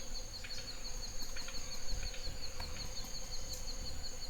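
Night-time outdoor ambience: insects such as crickets trilling steadily in a high, evenly pulsing chirr.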